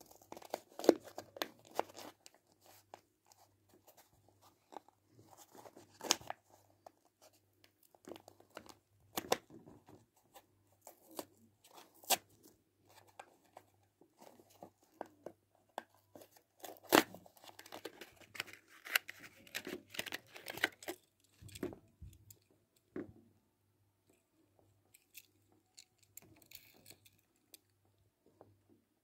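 Hot Wheels packaging being torn open and handled: irregular rips, crinkles and clicks of card and plastic. They are busiest over the first twenty seconds and thin out to a few faint clicks near the end.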